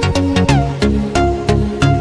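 Electronic dance music with a steady beat, about three beats a second, and a falling swoop about half a second in.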